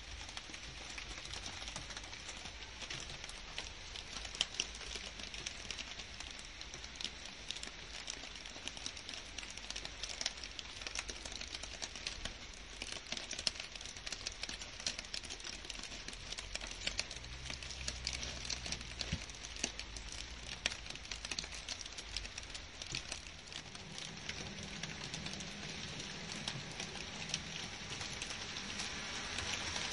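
Steady rain falling on garden foliage: a dense patter of many small drop taps on leaves over a continuous hiss, growing slightly louder near the end.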